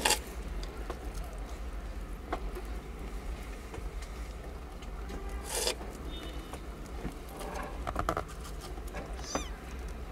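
Newborn kittens nursing against their mother: soft rustling of fur and blanket and small suckling clicks over a steady low hum, with a louder rustle about halfway and a short high squeak near the end.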